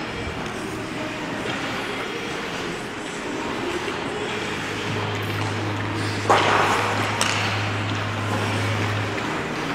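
Ice hockey game sound at the rink: a steady wash of skates scraping on the ice. A sharp clack with a ringing tail a little past six seconds in is the loudest moment, and a lighter knock follows about a second later. A low hum comes in about five seconds in and stops about a second before the end.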